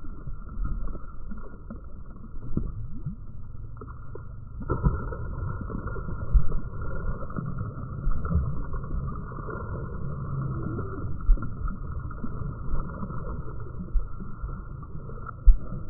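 Muffled, low water and boat noise with a few short knocks, as a released muskie splashes at the surface and swims off.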